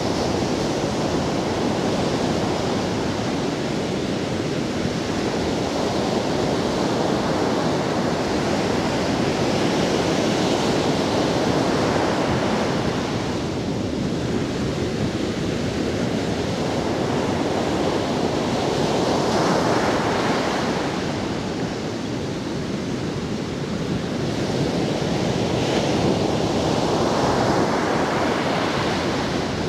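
Surf breaking on a sandy beach in a rough sea: a continuous wash of waves that swells as each one breaks and ebbs between them, with softer lulls about halfway through and again a little later.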